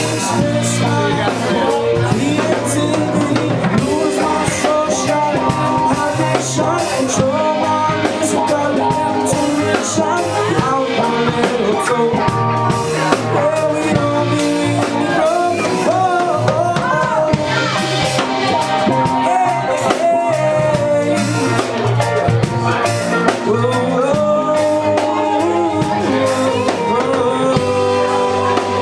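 Live band playing the song: a drum kit and guitar over a steady beat, with bending melodic lines on top.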